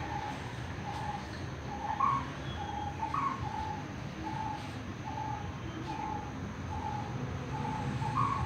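A bird calling over and over in short, even notes of one pitch, a little more than one a second, with a few higher notes mixed in.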